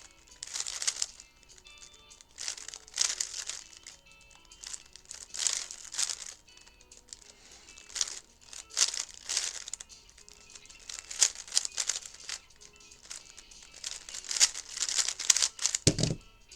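3x3 speed cube being turned in quick bursts of plastic clicking and clacking as the layers are spun, with short pauses between bursts and a single thump near the end.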